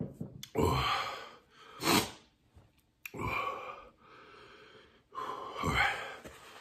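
A man breathing hard through his mouth: about four loud, gasping breaths and exhales with short pauses between, his mouth burning from an extremely hot pepper-extract hot sauce.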